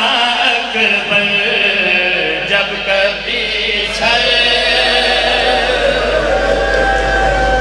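Several men's voices chanting a mourning recitation together through microphones and loudspeakers, the melody sliding and wavering at first and then, about halfway, settling into long drawn-out held notes.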